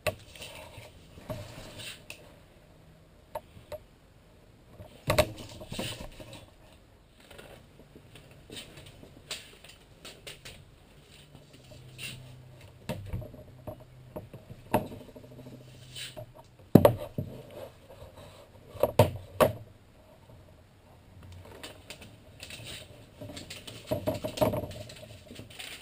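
Irregular metallic clinks, taps and knocks of aluminum trim strips being handled on a plywood bench. The loudest clanks come about five seconds in and in a cluster around two-thirds of the way through.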